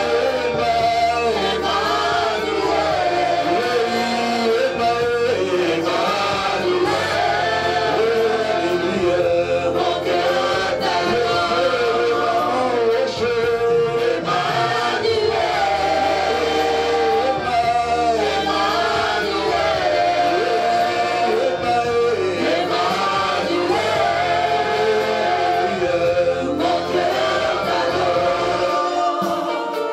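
Live gospel worship song: a man singing lead into a microphone with backing singers joining, over a steady band accompaniment with bass.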